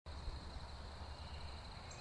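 Nighttime outdoor ambience: a steady high-pitched chirring with a low rumble underneath, and one brief high bird chirp near the end.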